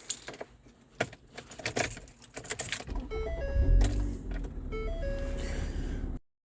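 Light metal jingling and clicks. About three seconds in, a low rumble starts with a few short steady tones, and the sound cuts off suddenly near the end.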